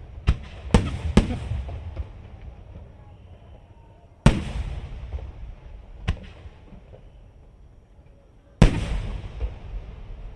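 Aerial firework shells bursting overhead. Three quick sharp bangs come in the first second or so, then a single loud boom about four seconds in, a smaller one near six seconds, and another loud boom near the end. Each leaves a rumbling echo that dies away slowly.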